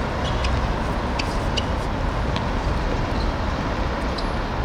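Steady low rumble of outdoor background noise, with a few faint sharp clicks scattered through it.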